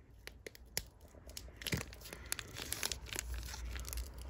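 Foil wrapper of a Pokémon TCG booster pack crinkling and tearing as it is worked open by hand. It is a stubborn pack, and it gives a run of irregular crackles that get busier about halfway through.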